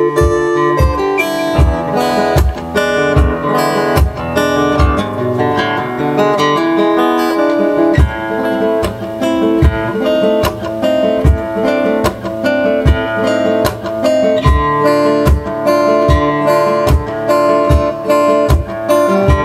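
Steel-string acoustic guitar being picked and strummed in a steady groove, with a suitcase kick drum beating low on each beat, a little more than once a second.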